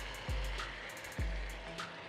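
Background music with a steady low beat, about one beat a second.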